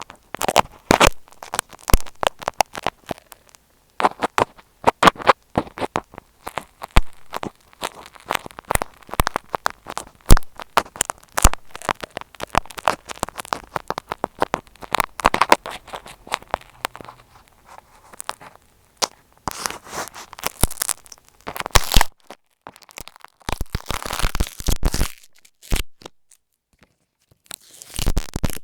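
Close-miked crackling, tapping and scratching from tape stretched over an Apple EarPods microphone being poked and rubbed, a dense run of sharp clicks broken by a couple of short pauses near the end.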